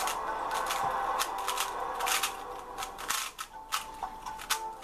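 Speedcube being turned fast by hand: a rapid, irregular clatter of plastic clicks as the layers snap round, several a second.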